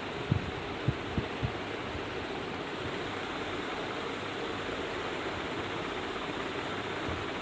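Steady hiss, with a few soft low thuds in the first second and a half as hands pat and press a rolled towel down on a bed.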